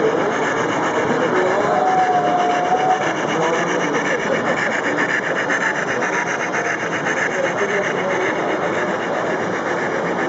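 Model steam locomotive and its coaches running on the layout: a steady rasping running sound, with a brief thin tone about two seconds in.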